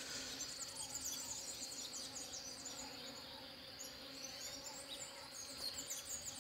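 Bees buzzing faintly around flowering mustard, under a steady high insect trill and many quick high-pitched chirps.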